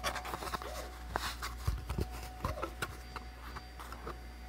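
Irregular light clicks and scrapes of hard plastic handled by hand: a freshly 3D-printed fidget spinner being worked loose from the printer's build plate, over a steady faint hum.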